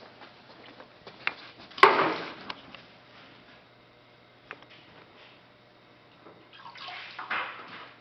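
Water splashing as a ThermoVape V1 vaporizer is plunged under: a sharp click and a loud splash about two seconds in, then more sloshing and splashing near the end.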